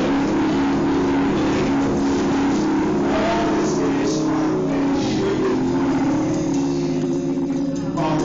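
Hammond B-3 organ playing full, sustained chords, with higher notes moving over them. The sound dips briefly just before the end, and a fresh chord comes in.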